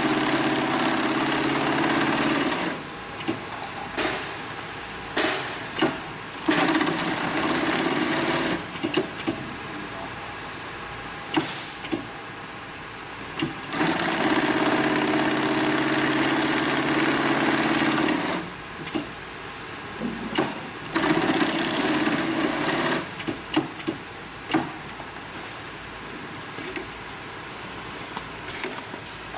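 Industrial big-bag overlock sewing machine stitching heavy woven bag fabric. It runs in four steady bursts of a few seconds each, the longest about four seconds, with short knocks and clicks in the pauses between.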